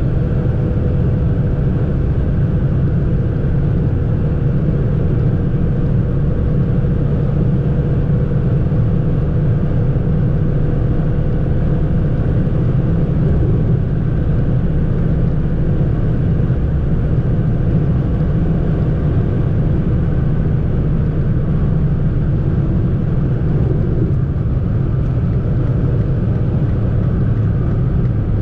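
Steady road and engine noise of a Fiat Panda being driven, heard inside the cabin: a low rumble with a faint steady whine that fades out about halfway through.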